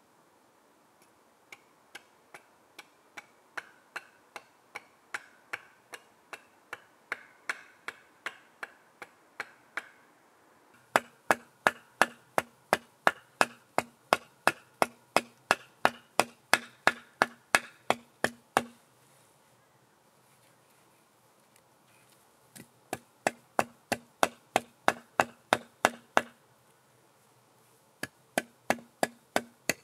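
Repeated sharp knocks of a tool striking wood, about two or three blows a second. They are soft at first, turn much louder about a third of the way in, and stop twice for a few seconds before starting again.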